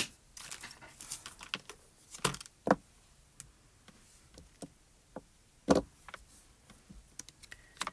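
Scattered rustles, clicks and taps of small cardstock die-cut pieces being handled and pressed together on a craft table, with a few sharper knocks, the loudest near the middle and about three-quarters of the way through.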